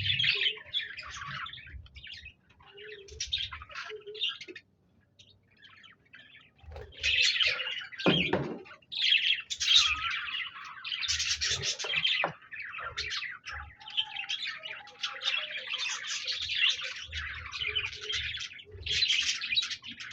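Pet budgerigars (parakeets) chirping and warbling in busy bursts of chatter, with a pause of about two seconds in the first third.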